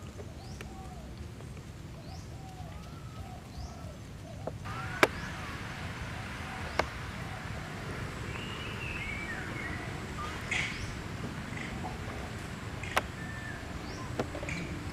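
Outdoor animal calls: many short chirps that rise and fall in pitch, repeated throughout, with a few sharp clicks, the loudest about five seconds in. The background noise grows louder about four and a half seconds in.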